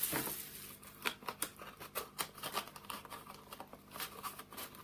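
Packaging and products being handled: a string of short rustles, crinkles and light taps.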